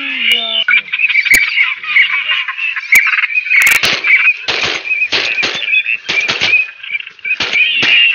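A large flock of waterfowl calling in a dense, continuous chatter, with repeated bursts of wing flapping and a few sharp cracks.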